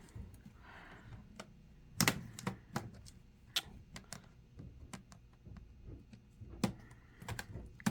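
Plastic snap clips of a laptop's bottom cover clicking loose as a plastic pry tool works along the seam: scattered sharp clicks and light taps at irregular intervals.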